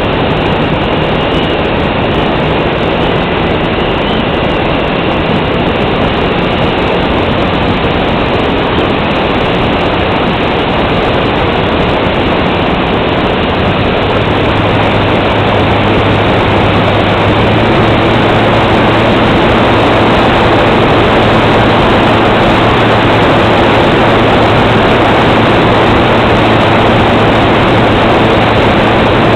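Airflow rushing over the onboard camera of a Multiplex Cularis electric RC glider in flight, with a steady hum from its electric motor and propeller underneath. About halfway through, the hum shifts to a lower pitch and the whole sound grows slightly louder.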